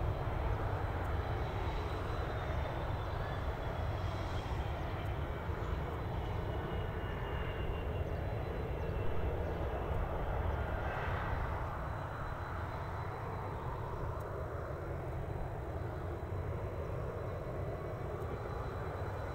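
Fokker 100 airliner's jet engines running as it rolls along the runway: a steady rumble with a faint whine. About twelve seconds in it gives way to the slightly quieter engine noise of a Boeing 757-200 taxiing.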